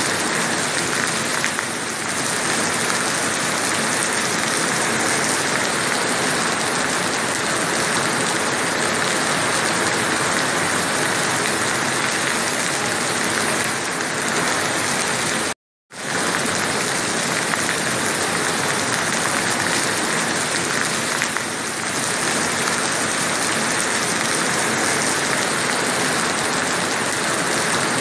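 Steady rain falling, a dense even hiss. A little past halfway it cuts out to silence for a moment, then resumes.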